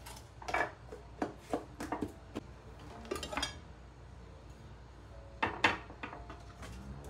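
Glass baking dishes and their plastic lids clinking and knocking as they are handled and set down on a countertop: a string of sharp knocks in the first three and a half seconds, then the loudest pair about five and a half seconds in.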